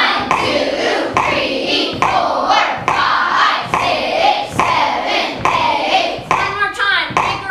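A class of children chanting a written rhythm aloud in unison, reading the notes the director points to, about two syllables a second, each with a sharp start.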